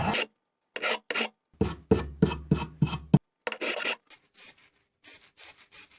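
Hand file rasping back and forth on the plastic hex of an oil filter housing cap rebuilt with superglue and baking soda, shaping it back to a hexagon. It is a quick run of short strokes, about three a second, heavier in the first half and lighter near the end.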